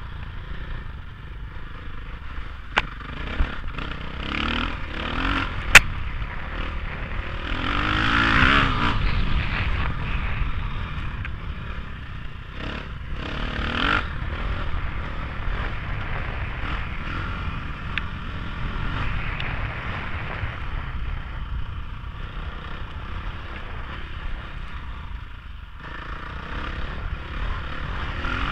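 KTM 500 single-cylinder dirt bike engine running under load on a rough dirt trail, heard from a helmet-mounted camera, swelling as it revs up about eight seconds in. Sharp knocks sound about three and six seconds in, the one near six seconds the loudest.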